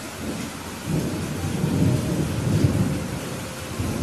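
Steady rain hissing, with a low rumble that swells about a second in and fades near the end.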